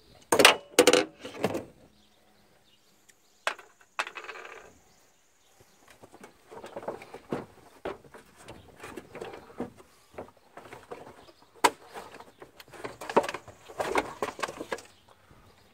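Loose steel shroud bolts clinking together in a hand, then the plastic upper radiator fan shroud being worked loose and pulled out, with irregular knocks and scrapes that are loudest near the end.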